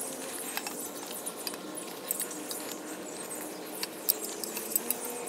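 Small clicks, scrapes and rattles of a hunting climbing stick and its strap and buckle being handled and fastened to a saddle hunter's waist.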